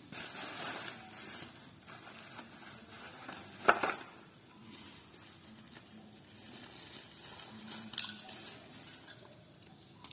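Plastic bubble wrap crinkling and rustling as die-cast toy cars are taken out of it, with a sharp clack about four seconds in and a lighter one near eight seconds.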